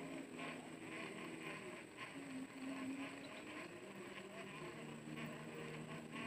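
Steady low drone of a distant engine, its pitch shifting a little now and then, with faint chirps about two a second above it.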